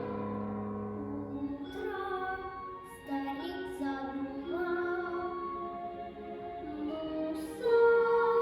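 A female voice singing a Russian song in long held notes, stepping from pitch to pitch, over a low sustained instrumental accompaniment.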